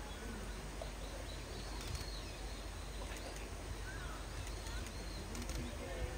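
Outdoor ambience with faint, scattered short bird chirps and a few light clicks.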